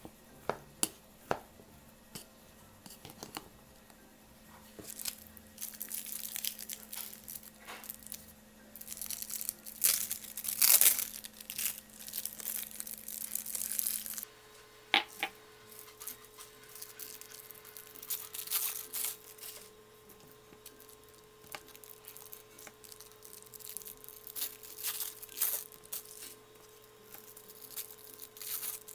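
A rice paddle clicks and scrapes against a bowl as cooked rice is mixed for about the first half. Then thin plastic film crinkles as it is peeled off imitation crab sticks, with a few clicks.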